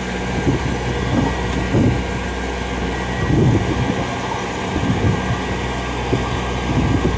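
Rice combine harvester's diesel engine and threshing gear running steadily, a constant mechanical drone while grain is bagged at its outlet.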